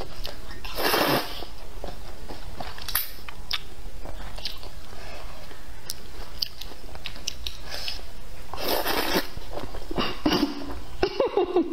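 Rice noodles being slurped up and chewed: two long slurps, about a second in and again after about eight seconds, with small wet mouth clicks and chewing between them.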